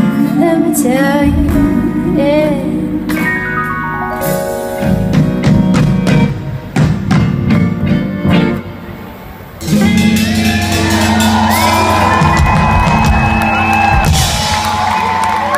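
Live band of acoustic guitar, electric guitar and keyboards with drums playing the closing bars of a song. About ten seconds in it lands on a final chord that rings on while the crowd cheers and whoops.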